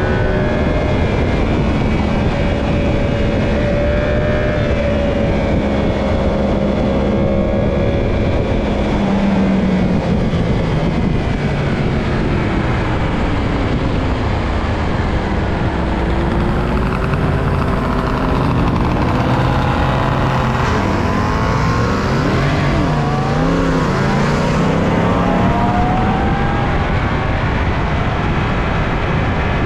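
Onboard motorcycle at speed with heavy wind rush on the microphone. The engine note rises and falls with throttle and gear changes, swinging up and down most in the second half.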